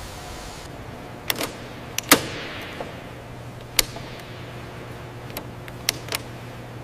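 Tools clicking and clanking at irregular intervals over a steady low machine hum. The loudest is a sharp clank a little after two seconds in, which trails off in a fading hiss.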